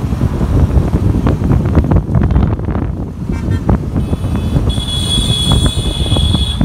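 Wind buffeting the microphone over a motorcycle's engine while riding. About four seconds in, a vehicle horn sounds as a steady high-pitched tone held for over two seconds.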